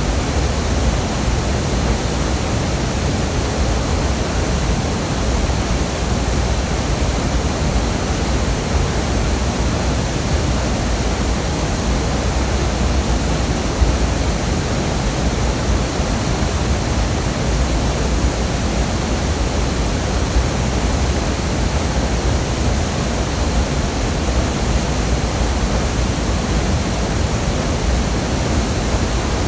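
Waterfall pouring, a loud steady rush of falling water.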